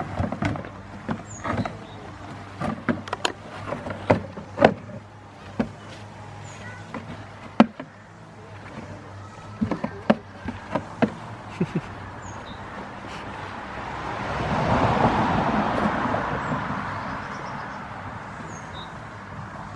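Goat kid rummaging in a cardboard box on a wooden pallet: irregular sharp knocks and scuffs of cardboard and hooves on wood. About two-thirds through, a broad rush of noise swells and fades.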